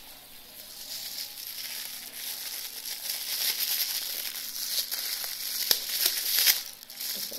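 Thin plastic bag rustling and crinkling as hands untie and open it out, with a few sharper crackles near the end.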